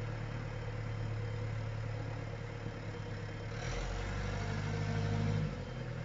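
Farm diesel engine idling steadily. Its note swells for about two seconds in the second half, then drops back to idle.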